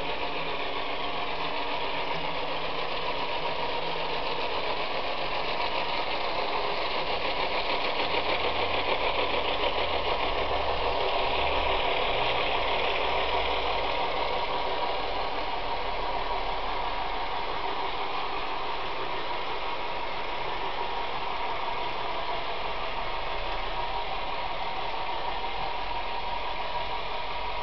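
Two Bowser Alco model diesel locomotives running, their onboard sound speakers playing diesel engine sound, mixed with a long train of model wagons and carriages rolling on the track. The sound is steady and grows a little louder for a few seconds around the middle.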